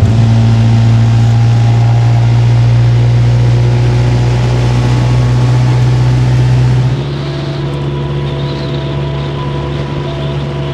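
Small motorboat's engine running steadily at speed, with a low hum and the rush of water and wind. About seven seconds in the sound changes abruptly: quieter, with the hum a little higher.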